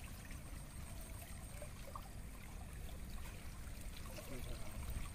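Water trickling and sloshing as a fine-mesh net is gathered up by hand in shallow muddy water.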